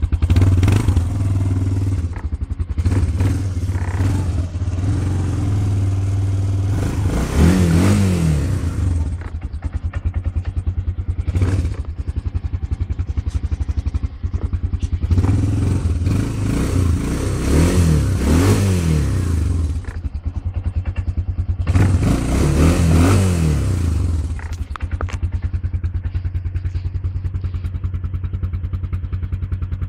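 SYM Truck Runner 200 ATV's single-cylinder four-stroke engine idling steadily. It is revved up and back down three times, then settles back to idle.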